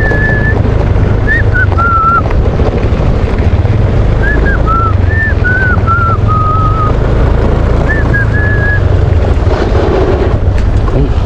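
A constant heavy low rumble of wind on the microphone. Over it come short whistled notes, some stepping or bending in pitch, in three brief phrases: at the start, around the middle and about eight seconds in.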